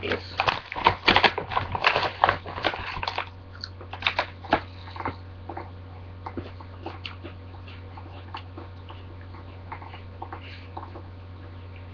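A plastic cookie bag crinkling and rustling for about three seconds, then scattered crunching of a cookie being chewed, fading to occasional soft crunches.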